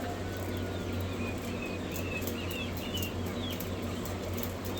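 Newly hatched quail chicks peeping: many short, high chirps with little pitch glides, overlapping at random, over a steady low hum.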